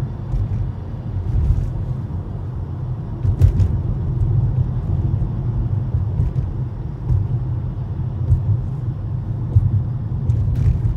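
A moving car's steady low road and engine rumble, with a few faint light ticks.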